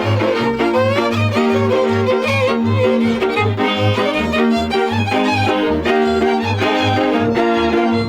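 Transylvanian village string band playing dance music: a fiddle leads the melody over held chords from the contra (three-string viola), with a double bass keeping a steady pulsing beat at about two to three notes a second.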